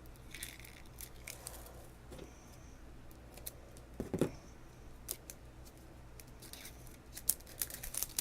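Scissors snipping through layers of plastic packaging wrap, a run of scattered sharp clicks and rustles with a louder snip about halfway through and several quick ones near the end.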